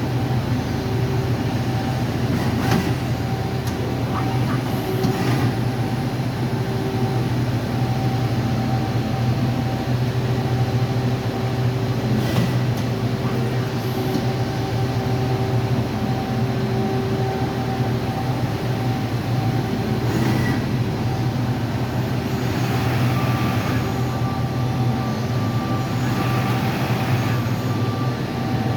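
Mazak Quick Turn Nexus 250-II CNC turning center running under power: a steady mechanical hum with a few light clicks, and a high steady whine joining near the end.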